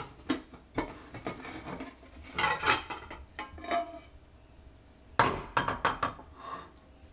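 A frying pan and a plate clinking and knocking together as the pan is turned over onto the plate to flip the bread omelette out. There are several scattered knocks, the loudest about two and a half and five seconds in, and a brief ring in between.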